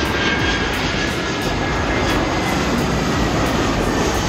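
Citilink Airbus A320 jet airliner on final approach to land: its engines give a steady roar with a faint high whine over it.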